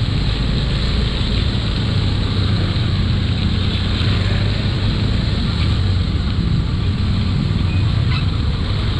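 Motor scooter riding at steady speed: wind rushing over the action-camera microphone over the steady drone of the engine.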